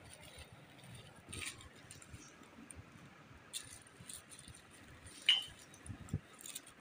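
Plastic shopping bags and snack packets rustling and crinkling in short bursts as they are handled, with a brief clink a little past five seconds in.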